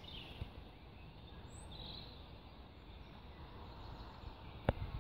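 Riverside ambience: a steady low rumble with a few faint bird chirps early on and about two seconds in. A single sharp click near the end is the loudest sound.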